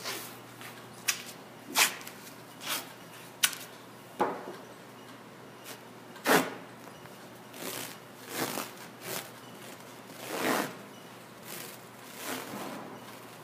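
White athletic tape being pulled off the roll, torn and smoothed onto a foot and ankle: a string of short ripping and rustling noises at irregular intervals, loudest about six seconds in.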